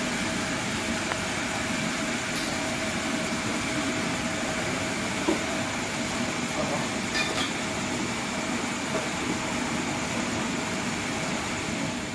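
Steady background din with constant faint hums and no single event standing out.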